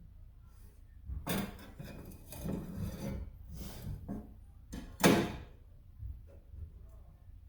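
Handling noise on a workbench: a few scraping strokes, then a sharp knock about five seconds in, the loudest sound.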